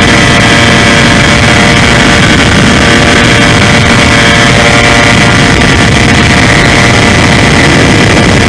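Multiplex EasyStar RC plane's electric motor and pusher propeller running steadily in flight, a loud steady whine over rushing wind noise, heard close up from the camera on board.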